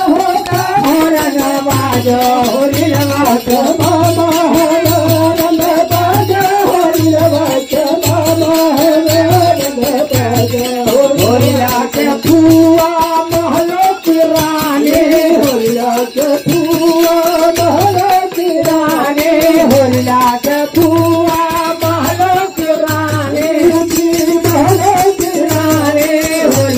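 Devotional folk singing (a bhajan) with a dholak keeping a steady low beat of about one stroke a second, which drops out for a few seconds in the middle, and metal hand cymbals or jingles rattling along.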